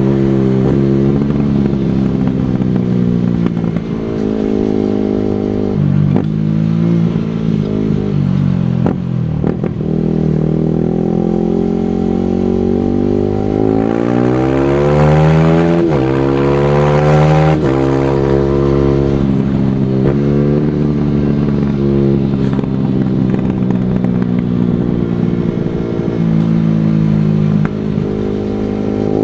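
Single-cylinder four-stroke supermoto motorcycle engine being ridden hard. Its pitch climbs under throttle and drops sharply at each gear shift or lift-off, then picks up again, several times over.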